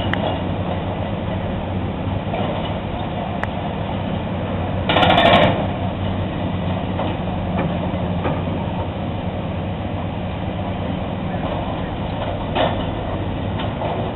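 Rock crusher running with a steady low engine drone, and a louder burst of noise about five seconds in and a shorter one near the end.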